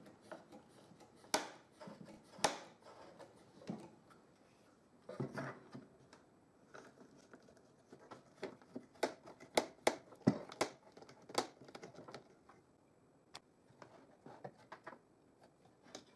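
Small metal screw clamps being fitted and tightened on wooden wedges: scattered, irregular clicks and knocks of metal against wood, busiest between about nine and twelve seconds in.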